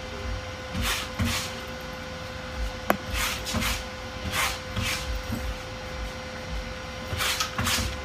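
Sticky lint roller rolled over the white neoprene face of a seat belt cover: about eight short rasping strokes of the adhesive sheet on the fabric, mostly in pairs, with a pause after the middle. A single sharp click about three seconds in.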